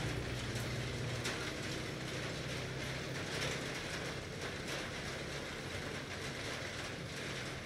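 Steady hum and bubbling of an aquarium's aeration, air bubbling up through the water, with a few faint clicks.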